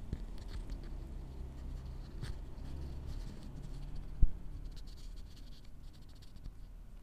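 A kitten eating rice off a plastic plate close to the microphone: small clicks, licks and scratching sounds of its mouth on the food and plate. One sharp thump a little after four seconds in.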